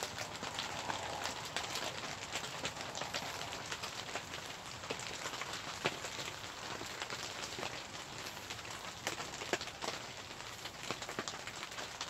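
Rain pattering: irregular drops ticking sharply, several a second, over a steady hiss.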